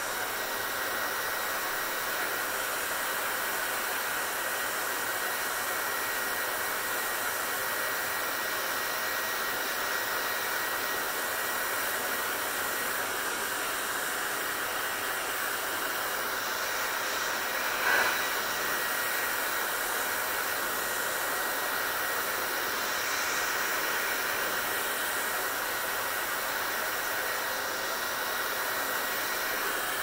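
Handheld hair dryer blowing steadily as long wet hair is dried: an even rush of air with a faint steady whine. There is one short, louder blip about eighteen seconds in.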